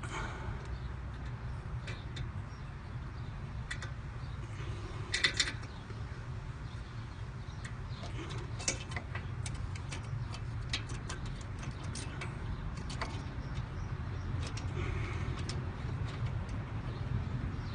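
Light metallic clicks and taps from hand tools and brake parts being worked at a car's front brake, with a louder cluster of clicks about five seconds in and a run of quick ticks later on, over a steady low rumble.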